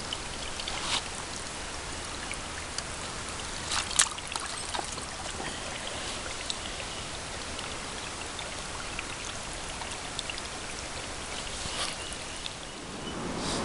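Steady patter and trickle of water, with a few short sharp clicks and knocks on top, the loudest about four seconds in.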